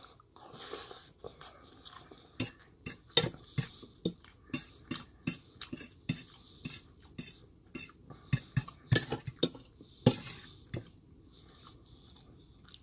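Metal fork clinking and scraping against a stainless steel bowl in many short, irregular clicks, with chewing between them.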